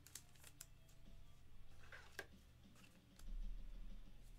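Faint scattered clicks and taps of hands handling a plastic card holder, over a low steady hum.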